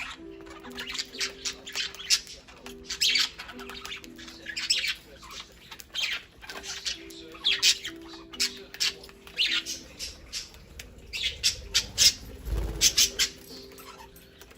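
Budgerigars squawking in quick, sharp, overlapping calls as they squabble over a rice cracker.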